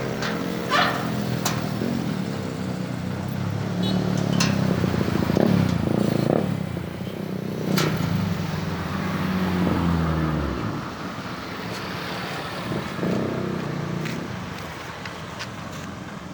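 Road traffic passing, trucks among it: engines running, swelling as vehicles go by about five seconds in and again near ten seconds, with a few sharp clicks.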